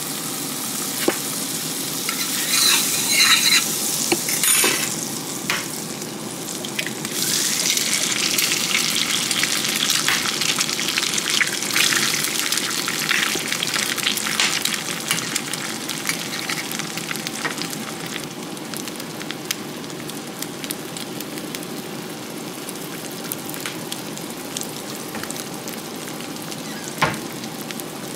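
Food frying in a pan: a steady sizzle full of small crackles and pops. It swells sharply about seven seconds in, then slowly settles down again.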